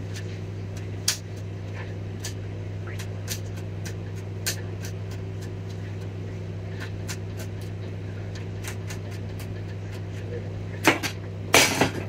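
Faint, irregular clicks and scratches of a pointed tool scraping corrosion off a laptop motherboard's copper traces, over a steady electrical hum. A few louder knocks come near the end.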